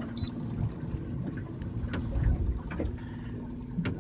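A Simrad fish finder gives one short, high key beep near the start as it is pressed. Under it run a steady low hum and the wind and water noise of a boat under way, with a sharp click shortly before the end.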